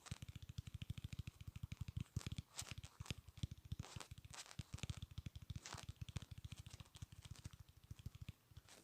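Rapid clicking made for an ASMR click-sounds recording, about ten sharp clicks a second, uneven in strength, running without a break.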